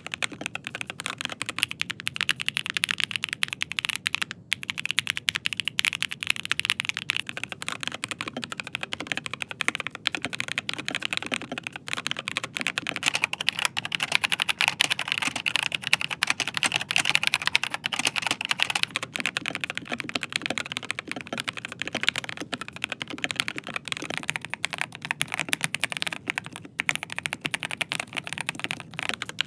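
Continuous fast typing on mechanical keyboards, dense clacking keystrokes, changing board in turn: an Asus ROG Azoth with ROG NX switches, then about twelve seconds in a Logitech G Pro X TKL with GX Brown switches, then near the end a Rapture Kilo V2 Wireless with Gateron G Pro 3.0 Red linear switches.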